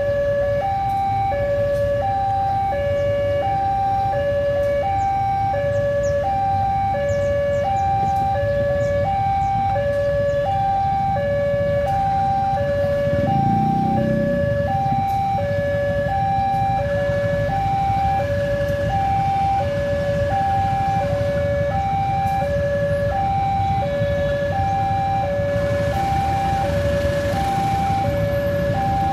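Electronic two-tone warning alarm, alternating steadily between a high and a low note about every 0.7 s, over a low steady rumble of a diesel locomotive running. About halfway through, a short low swell rises above the rumble.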